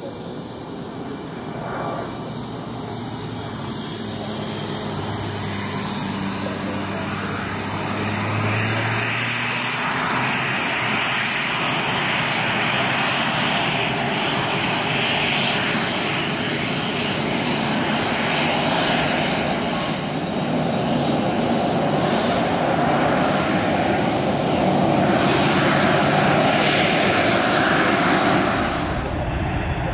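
Fixed-wing aircraft's engines growing steadily louder, loudest a few seconds before the end, then cut off abruptly.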